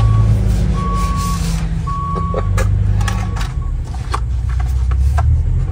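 Reversing alarm on a construction vehicle, beeping at one steady pitch about once a second over the low rumble of a heavy engine. The beeps sound about four times, the last fainter, then stop a little past halfway. Short clicks and knocks of gear being handled sound through it.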